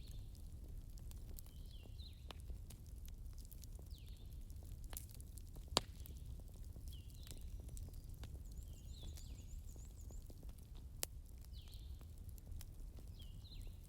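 Wood fire burning with a steady low rumble, soft crackling and a few sharp pops, the loudest about six seconds in. Faint high chirps that dip in pitch repeat every second or so behind it.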